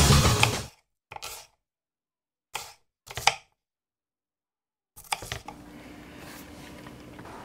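Background music fades out in the first second; then a few separate knife chops through a red onion onto a plastic cutting board, followed by faint room tone with a low steady hum.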